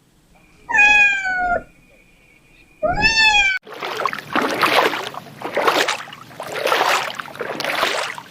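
Cat meowing twice, each call under a second long and falling in pitch, followed by a rhythmic rushing noise that pulses about once a second.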